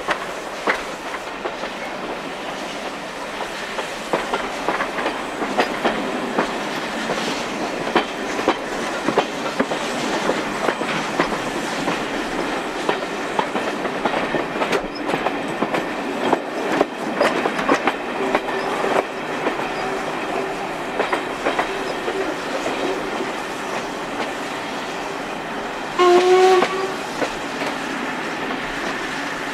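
Steam-hauled passenger train running, heard from an open carriage window: wheels clicking over rail joints over a steady rushing noise. Near the end, one loud blast of about a second on the locomotive's whistle, from LMS 8F steam locomotive 48151.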